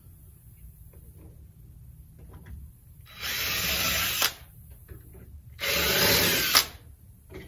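Cordless drill boring two short pilot holes into wood, each run lasting about a second: the first about three seconds in, the second near six seconds. Each run ends in a sharp click.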